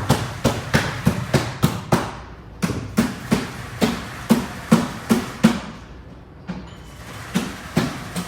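Rapid repeated knocks, about two to three a second, with a short lull about six seconds in before they start again.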